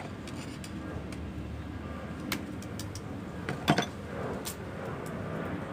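Scattered light clicks and taps from the mechanism of an IBM Selectric III typewriter being worked on, with a sharper cluster of clicks about two-thirds of the way in, over a low steady murmur.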